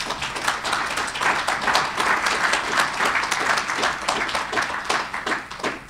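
Audience applauding a finished lecture, many hands clapping together and dying away near the end.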